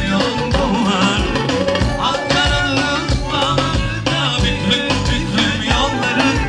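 Upbeat music with a steady beat and a lead melody that bends and wavers in pitch.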